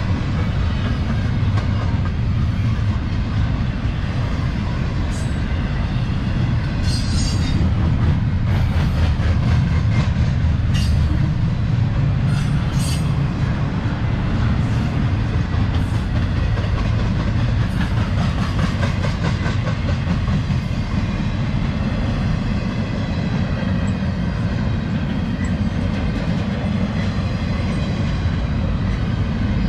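CSX freight train's double-stack container cars rolling past at close range: a steady, loud low rumble of steel wheels on rail, with a run of sharp clicks from wheels crossing rail joints between about five and thirteen seconds in.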